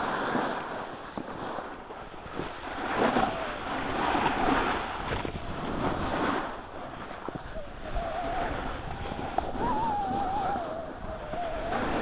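Snow hissing and scraping under a rider's edges on a ski slope, swelling and fading with each turn, with wind rushing over the microphone. A thin wavering whistle-like tone runs through the second half.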